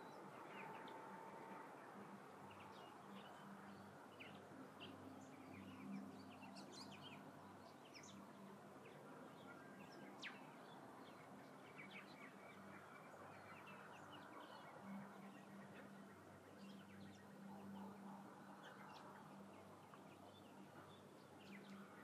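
Faint, scattered bird chirps and calls from the surrounding bush, over a quiet, low steady hum.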